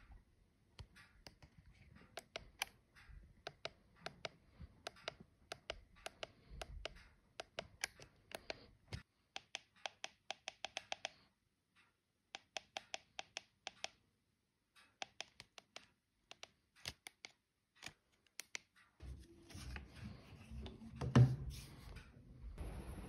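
Buttons on a night vision binocular clicking repeatedly in quick runs while its on-screen settings menu is scrolled. Near the end there is a single loud thump over a low rumble.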